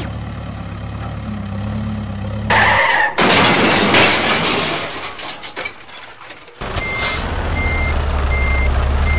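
Heavy vehicle engine running low and steady, then a loud rush of noise about three seconds in that dies away over a few seconds. Near the end the engine starts up again and a reversing alarm beeps at an even pace, a little over one beep a second.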